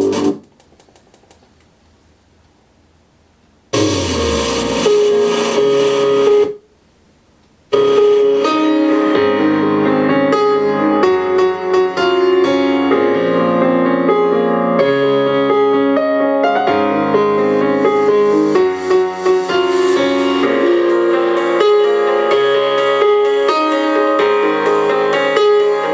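Piano-led recorded music played through a portable boombox's speakers. It cuts out almost at once, comes back for about three seconds, drops out again for about a second, then plays on steadily.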